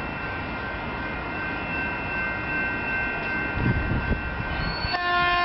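Diesel-hauled passenger train approaching, a steady rumble and rail noise with a faint high whine. Near the end a steady pitched tone starts.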